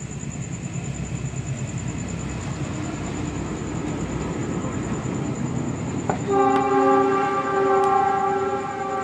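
A heavy vehicle passing, its rumble pulsing and growing louder, then a loud horn chord sounding about six seconds in and holding on.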